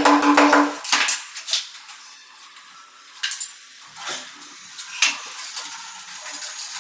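Background music that stops about a second in, followed by scattered sharp clinks and knocks of hard objects being handled.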